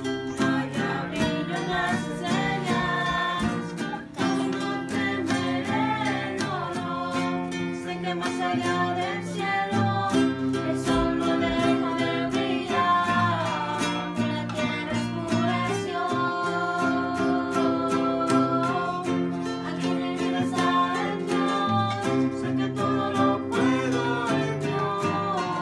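A woman and a girl singing a Christian song together, accompanied by a strummed string instrument keeping a steady beat.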